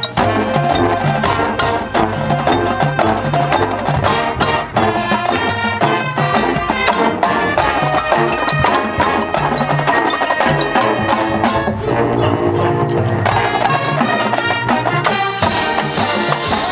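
Marching band playing, with brass carrying the tune over drums and other percussion striking a steady beat.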